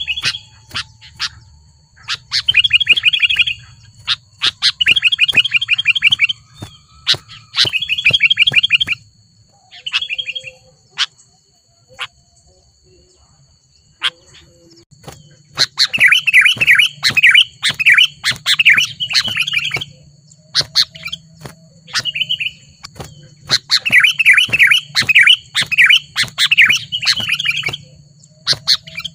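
Sooty-headed bulbul calling in bursts of fast, chattering notes, with short phrases early on and two longer, louder runs in the second half. A faint steady high whine runs underneath.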